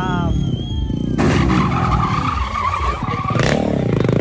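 Motorcycle on an off-road dirt track, its engine running. A loud rush of noise comes from about one second in to about three seconds, then a fast, even low engine beat near the end.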